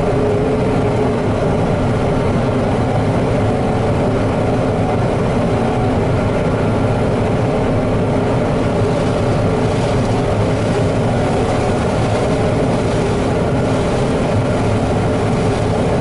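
John Deere combine harvesting corn, heard from inside the cab: engine and threshing machinery running at a steady, unbroken drone as the corn header takes in standing stalks.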